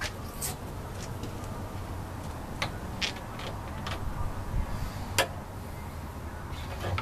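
Scattered light clicks and taps of metal parts being handled as a pen blank on its mandrel is taken off a small lathe, which is not running. The sharpest tap comes about five seconds in, over a steady low rumble.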